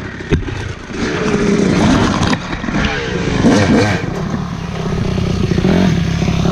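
Yamaha YZ dirt bike engine being ridden over a rough trail, revving up and down with the throttle, with a sharp knock about a third of a second in. Near the end it settles to a steadier, lower running.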